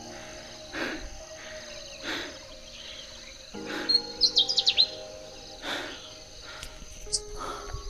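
Pale-footed bush warbler singing from cover: a quick burst of about six sharp, high, falling notes about four seconds in, and one more high note near the end, over a steady high-pitched insect drone.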